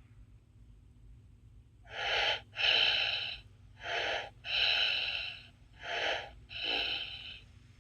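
Electronic baby doll's recorded snoring: three slow breaths starting about two seconds in, each a short in-breath followed by a longer out-breath.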